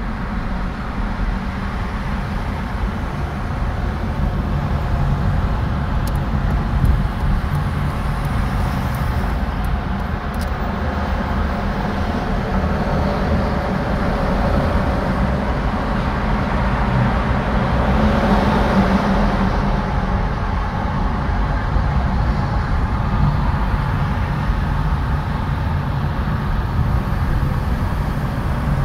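Steady road and tyre noise with engine rumble, heard from inside a car's cabin while driving on a highway, swelling somewhat in the middle.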